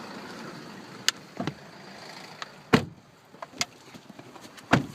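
Clicks and knocks of people settling into a car, with a heavy thump a little under three seconds in and another near the end, like car doors shutting.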